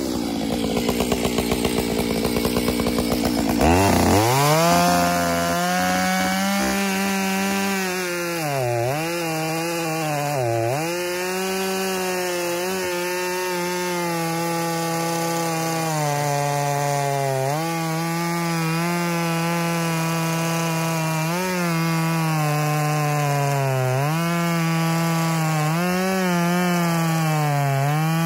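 Makita 7900 two-stroke chainsaw idling for a few seconds, then revved to full throttle about four seconds in and bucking a large white oak log. The engine pitch dips again and again as the chain loads up in the cut.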